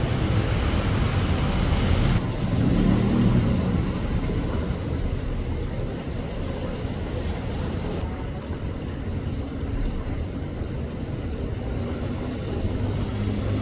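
Strong wind rumbling on the microphone with rain hiss; the higher hiss drops off abruptly about two seconds in.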